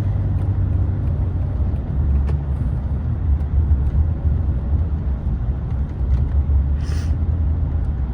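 Steady low road rumble of a car driving along, heard from inside the cabin. A brief hiss sounds about seven seconds in.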